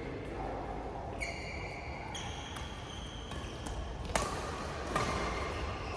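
Badminton rally: shoes squeaking on the court floor, and sharp racket strikes on the shuttlecock, the two loudest in the second half under a second apart.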